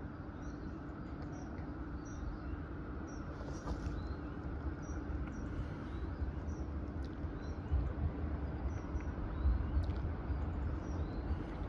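Class 170 Turbostar diesel multiple unit approaching the station, a low diesel rumble and steady hum slowly growing louder as it nears.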